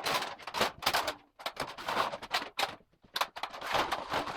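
Rummaging and handling of hardware: a dense, irregular clatter of clicks and rustles with no steady rhythm.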